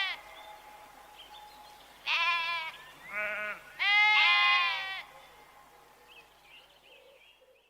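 Bleating from small livestock: three calls about two, three and four seconds in, the last and loudest lasting about a second.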